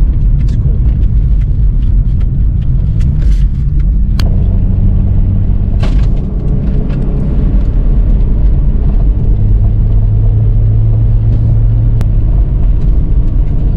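Cosworth BOB V6 in a Ford Sierra XR4i running under way, with steady low road and engine rumble. The engine note changes pitch about four seconds in and climbs to a higher steady note from about nine seconds.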